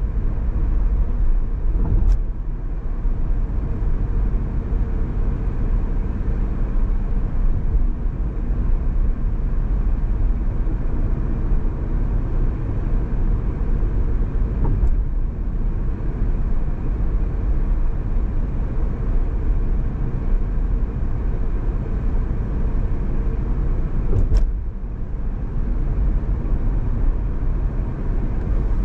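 Steady low rumble of road and tyre noise from a car driving, with three brief sharp clicks: about two seconds in, halfway through, and a few seconds before the end.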